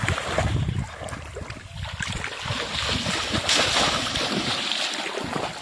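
Shallow paddy water splashing and sloshing irregularly as hands and bamboo polo plunge-basket fish traps are thrust down into it; the splashing is heaviest about three and a half seconds in.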